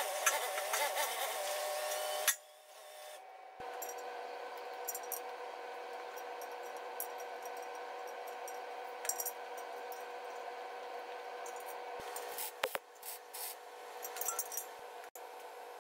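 A forklift engine running for the first couple of seconds, then cutting off. After that, a steady machine hum, with light metal clinks and rubbing as a homemade circle-cutting jig is fitted into the centre of a steel tractor wheel rim, a few sharper clicks coming near the end.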